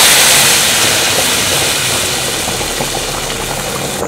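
Hot oil with fried onions and chili powder poured into a pot of boiling nihari: a loud sizzle that dies down over a couple of seconds into steady bubbling with small pops.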